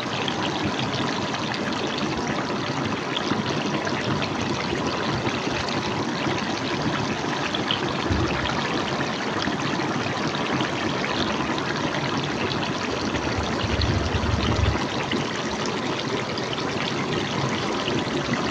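Duck braised in soy sauce, cooked in its own oil with no water added, bubbling and sizzling steadily in a pot on a gas burner. Two brief low bumps come about eight and fourteen seconds in.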